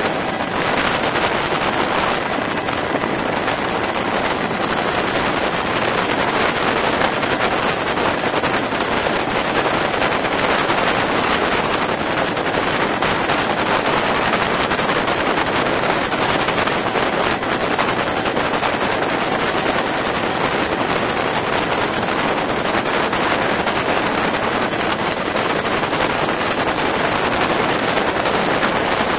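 UH-1 Huey helicopter in flight, heard from inside the cabin at the open side door: steady, loud rotor and engine noise mixed with rushing air.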